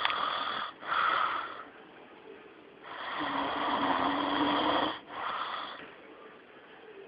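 A man snoring in his sleep: a few short, noisy breaths, then a long snore of about two seconds with a steady low buzz, starting about three seconds in.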